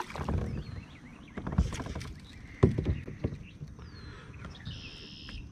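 A hooked bluegill splashing at the surface as it is pulled in to a kayak, followed by a few sharp knocks and splashes against the boat. The splashing comes in three short bursts.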